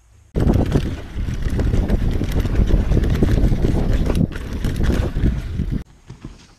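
Mountain bike ridden fast down a dirt forest trail, heard up close from the rider's mount: wind buffeting the microphone, with a dense rattle of clicks and knocks from the tyres and bike over the ground. It starts abruptly just after the start and stops abruptly near the end.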